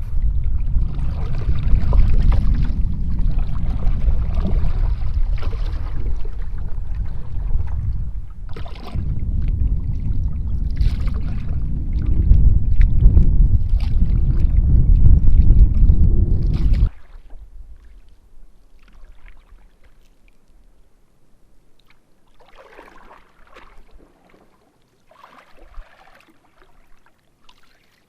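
Canoe paddling on open water with heavy wind rumble on the microphone and short splashes from paddle strokes. The wind cuts off abruptly about two-thirds of the way through, leaving calm water with two soft paddle strokes near the end.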